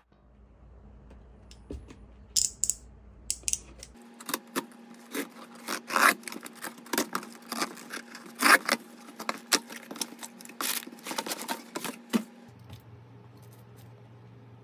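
A cardboard shipping box being cut open with a snap-off utility knife and handled: an irregular run of sharp clicks, scrapes and rustles, busiest in the middle and dying down near the end.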